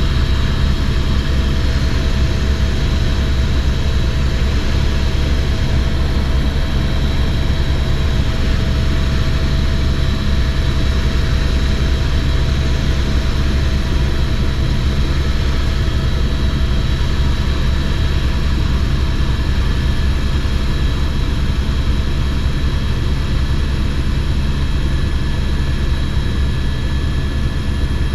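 Helicopter in flight, heard from inside the cabin: a steady, loud rotor drone with a constant high turbine whine over it.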